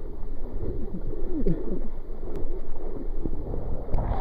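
Muffled sloshing and gurgling of lake water at the waterline as hands paddle an inflatable boat through it.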